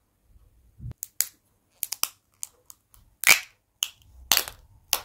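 Clear plastic candy capsule being handled and pried open: a string of sharp plastic clicks and snaps, the loudest two a little after three and four seconds in.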